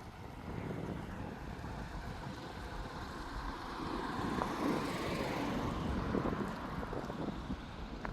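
Strong wind buffeting the microphone in gusts, with a broad rushing sound that swells about four to six seconds in and then eases.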